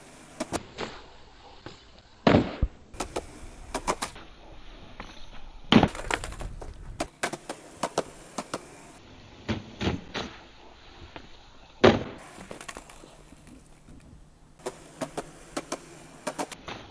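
Skateboard on concrete: wooden board clacks and tail pops, wheels rolling, and the board slamming onto the pavement three times loudly, about two, six and twelve seconds in, during tries at a 360 kickflip.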